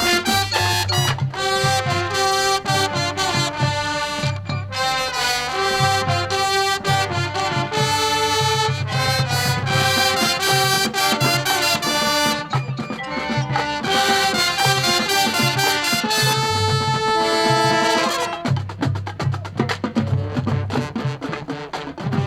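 High school marching band playing its field show: brass chords over drums. About 18 seconds in the horns drop out, leaving mostly percussion.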